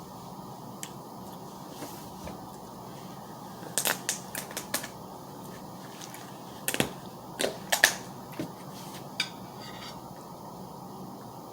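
Close-up eating sounds of strawberries with whipped cream: two clusters of sharp clicks and crunches from biting and chewing, about four and about seven seconds in, with one more click a little later.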